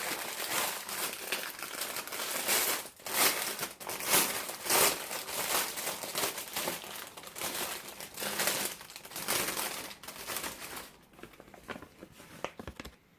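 Plastic wrapping crinkling as a diamond-painting canvas is unwrapped by hand, in irregular crackling surges that die down to a few faint crinkles from about 11 seconds in.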